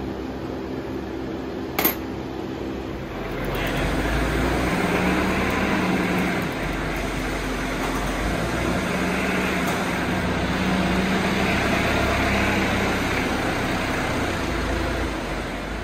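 Caterpillar forklift running and driving, its engine drone coming in about three seconds in and holding steady, easing off near the end. A single sharp click sounds just before the engine comes in.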